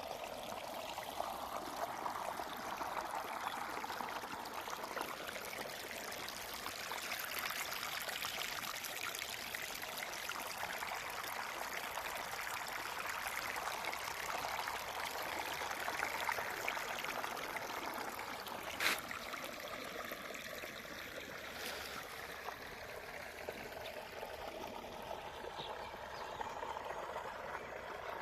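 Running water flowing steadily with a splashing, trickling rush. A single sharp click cuts in about two-thirds of the way through.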